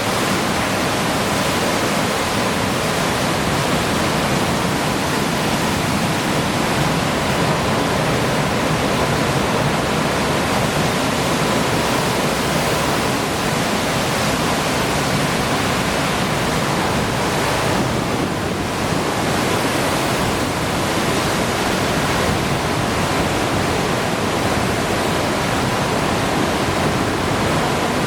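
Hurricane wind and driving rain: a loud, dense, steady rushing noise with no let-up, and a faint steady whistle in it.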